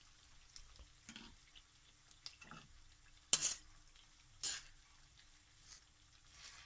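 Spatula scraping and knocking in a kadhai as a heap of freshly added sliced onions is stirred in hot oil: about six separate strokes, the loudest a little past three seconds in, over a faint sizzle.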